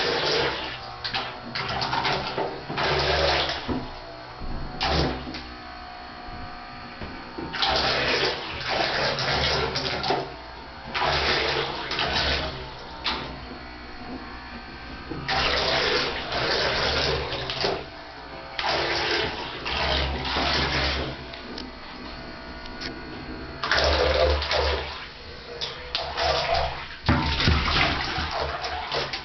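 Water splashing in a bathtub as a cat paws at it, in bursts of a second or two every few seconds.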